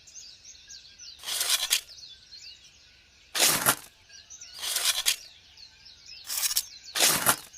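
Small birds chirping steadily, broken by five short, loud bursts of noise about a second apart, each lasting under half a second.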